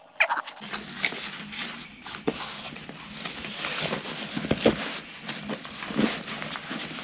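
Backpack fabric and webbing straps rustling and scraping as hands thread and tighten the webbing, with a few soft knocks and clicks from buckles.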